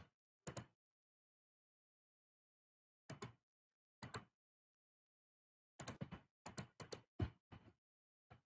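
Scattered short clicks and knocks: single ones about half a second, three and four seconds in, then a quick run of about six between six and eight seconds, with dead silence between them.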